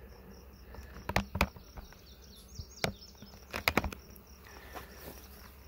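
Honeybees buzzing around the hives. Several sharp clicks or knocks cut through it: two about a second in, one near three seconds, and a quick cluster just before four seconds.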